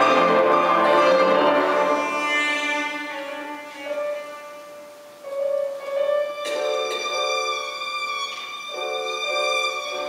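Live classical music from solo violin, cello and piano with an orchestra. A loud full passage softens over the first few seconds to a quiet held note, and the music grows fuller again about six seconds in, with higher notes entering.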